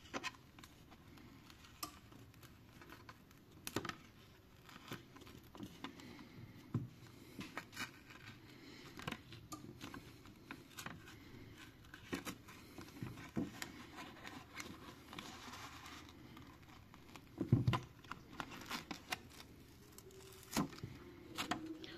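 Faint scraping and crackling as a stiff plastic screen-protector backing sheet is slid along the seam of a Xiaomi phone's glued back glass, peeling the double-sided adhesive tape from the frame, with scattered small clicks. A couple of louder knocks come in the last few seconds.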